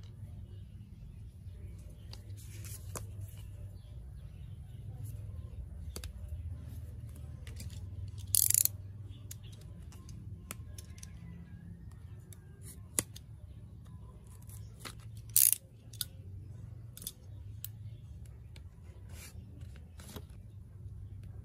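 Scissors snipping the card packaging of a nail stamping plate, with two sharp snips about eight and fifteen seconds in, among lighter clicks and rustles of card and plastic being handled.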